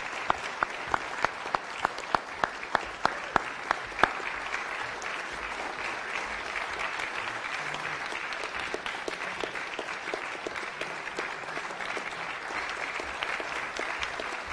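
Audience applauding an award winner. One close, loud clapper keeps a steady beat of about three claps a second through the first four seconds, then the applause goes on as an even patter.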